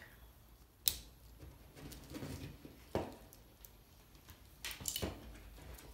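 Small handling noises from a bundle of automotive harness wires: three sharp clicks, the first the loudest, with faint rustling and shuffling of wire between them.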